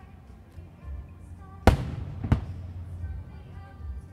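Two aerial firework shells bursting, sharp booms about two-thirds of a second apart, the first the louder, each with an echoing tail, over music playing throughout.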